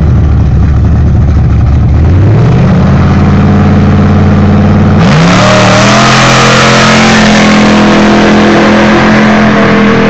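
1965 Chevrolet C10 pickup's engine on a drag-strip start line, running loud, then brought up in revs about two seconds in and held there. About five seconds in it launches at full throttle, the pitch jumping up and the exhaust going harsh as the truck pulls away.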